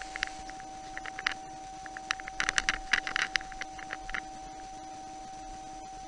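A run of quick, irregular clicks and taps between about one and four seconds in, over a steady electrical-sounding hum with a constant mid-pitched tone.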